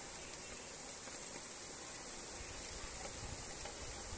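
Light rain falling steadily: a soft, even hiss with no distinct drops.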